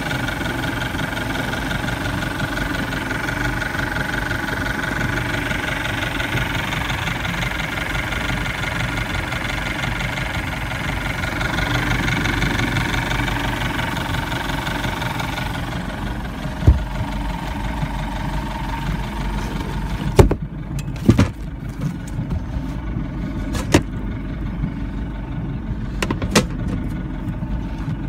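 MerCruiser 3.0 inline four-cylinder boat engine idling steadily. About sixteen seconds in the sound turns duller, and a few sharp knocks and clicks follow.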